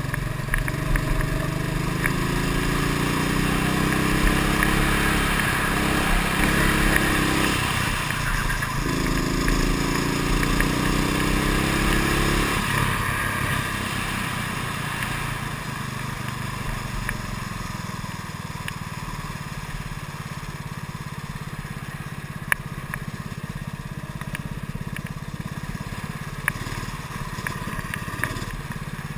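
Racing kart's engine heard from on board, its pitch rising steadily twice as the kart accelerates, with a short drop in between. It then runs on at a steadier, slightly lower level.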